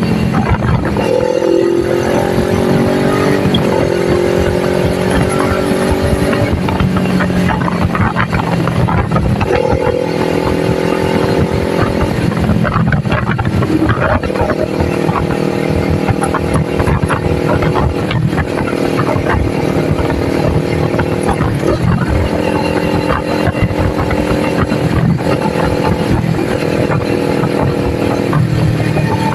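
Kawasaki Ninja 400's 399 cc parallel-twin engine running loud and steady while riding at speed. Its pitch holds level for stretches and dips or steps briefly every few seconds, with a steady rushing noise underneath.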